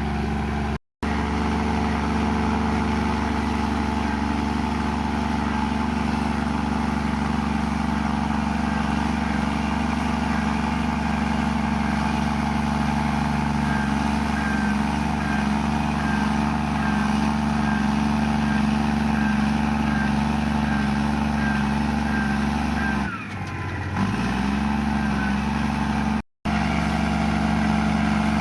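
Komatsu bulldozer's diesel engine running steadily while pushing mud; about four-fifths of the way through, its pitch and level briefly drop and then recover. The sound cuts out for a split second twice.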